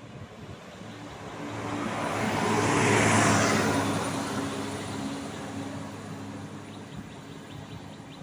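A bus passing close by: engine and tyre noise swell to a peak about three seconds in, then fade away. No horn is sounded.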